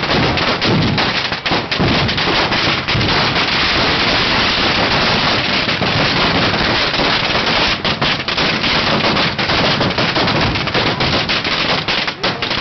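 Fireworks going off in a dense, rapid barrage of sharp bangs and crackles, almost without a break.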